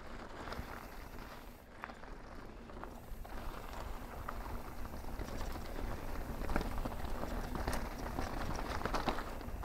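Mountain bike riding fast down a rocky dirt trail: tyres crunching and clattering over rocks and gravel, with many small knocks and rattles from the bike and a low wind rumble on the microphone. It grows louder and busier about four seconds in.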